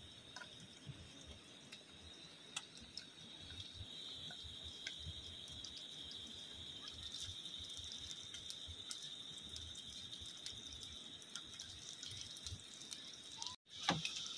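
Faint riverside ambience: flowing river water with a steady high insect chirring and a few light ticks. The sound drops out briefly near the end.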